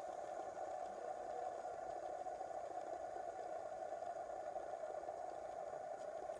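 Metal fidget spinner whirring steadily as it spins lying flat on a table, a continuous mid-pitched hum.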